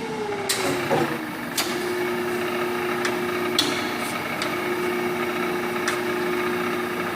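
Thompson 6 x 18 Model B surface grinder running: a steady machine hum that slides down in pitch over the first second and then holds level, with a few sharp knocks at irregular intervals.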